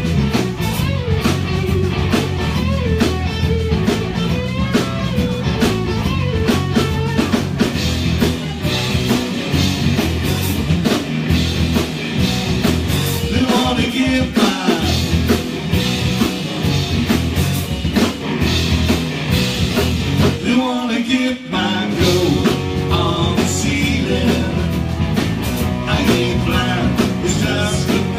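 Live rock band playing: electric guitar, drum kit and singing, with a brief break in the music about three-quarters of the way through.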